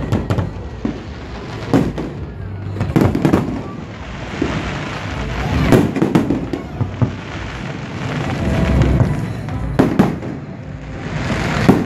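Fireworks display: aerial shells bursting with sharp bangs at irregular intervals, several coming in close pairs.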